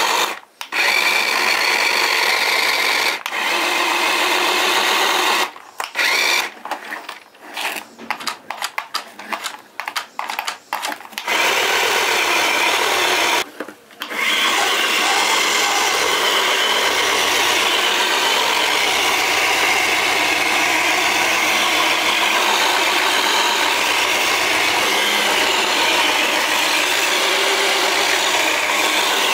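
A 1:16-scale RC toy car's small electric drive motor whirring. For the first ten seconds or so it comes in short stop-start bursts as the joystick is worked. It then runs steadily for the rest, with one brief pause.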